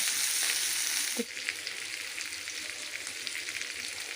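Whole fish shallow-frying in butter and a little oil: steady sizzling with small crackles, dropping suddenly quieter about a second in.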